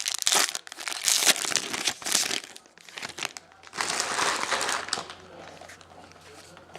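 A 2011 Topps football card pack wrapper crinkling as it is torn open and handled, in two spells of rustling, the second stopping about five seconds in.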